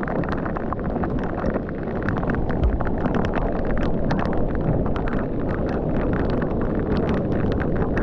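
Heavy rain falling on the sea and on the camera: a dense, irregular patter of drops over a steady low rush, with wind buffeting the microphone.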